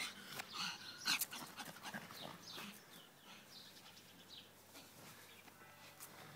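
Petit brabançon (small griffon dog) whimpering in short, high calls while playing, with a few sharp clicks near the start; the calls thin out in the second half.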